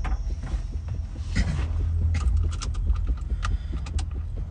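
A person climbing into a car's driver's seat: rustling and a steady low rumble, then a run of light, irregular clicks and taps in the second half.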